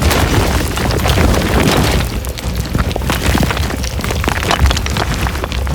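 Dramatic intro music with deep booms and many sharp cracking hits layered over a constant low rumble.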